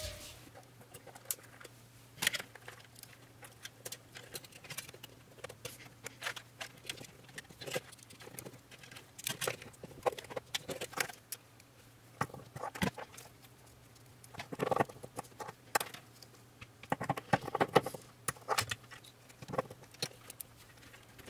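Irregular small clicks, taps and rustles of wires, plastic relays and a screwdriver being handled while relay sockets are wired, with two busier clusters of clicks in the second half, over a faint steady low hum.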